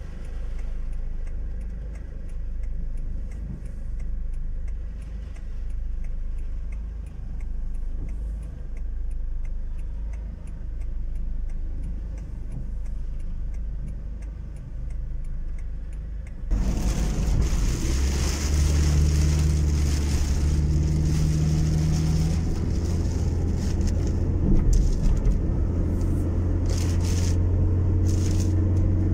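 Car cabin noise: the engine idles low and steady with a faint regular ticking, then about halfway through the sound jumps suddenly louder as the car drives on a wet road, the engine running under a hiss of tyres and rain, with a few sharper taps near the end.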